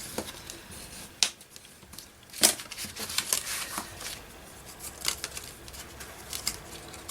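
Paper being folded over and creased by hand: scattered crisp rustles and sharp crackles, the loudest about a second in and again about two and a half seconds in.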